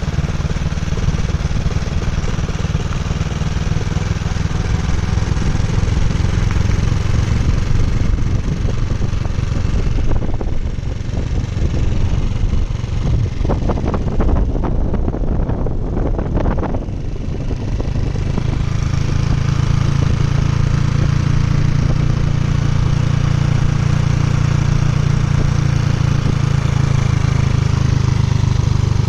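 Honda CG 125's single-cylinder four-stroke engine running steadily. From about ten to seventeen seconds in its low rumble thins out, then it settles back to a steady, slightly fuller note.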